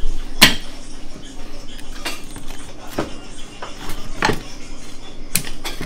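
About five scattered sharp clinks and knocks of a cutter and plate against a stainless steel counter as a pizza is sliced on its plate, over a steady low hum.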